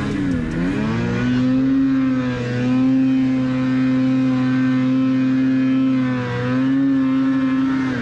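Two-stroke mountain snowmobile engine revving hard on a climb, the revs dipping briefly about half a second in and again around six seconds, then falling away sharply at the very end as the sled goes over on its side in the snow.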